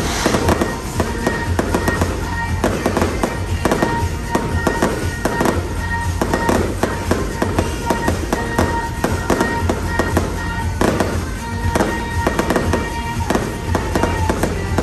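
Fireworks display: many shells bursting and crackling in quick succession throughout, over the show's music soundtrack playing on loudspeakers.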